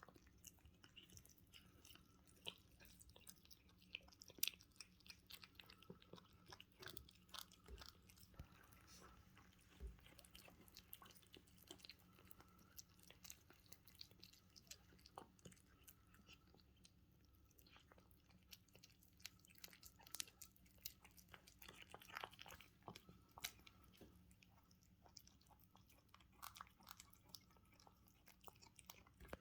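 Russian Blue kittens eating fast: quiet, irregular crunching and chewing clicks.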